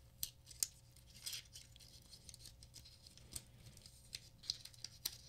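Faint crinkling and rustling of a thin plastic protective wrapper being peeled off a smartwatch, with scattered small crackles and clicks, a longer rustle a little over a second in, and a few sharper clicks near the end.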